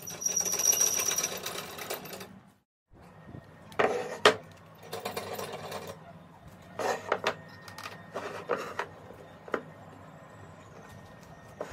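Homemade wooden rip fence sliding and rattling along a plywood table-saw top for about two seconds, then, after a brief break, scattered knocks and short scrapes of a wooden board being set down and slid against the fence. The saw is not running.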